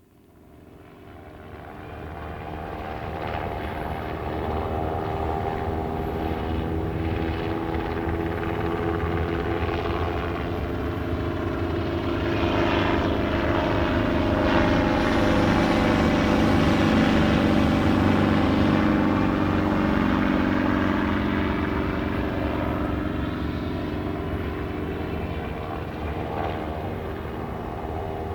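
Two NYPD police helicopters circling overhead, their rotors and turbines running steadily. The sound fades in over the first few seconds and swells to its loudest in the middle, with the pitch bending as they pass closest. It eases off slightly near the end.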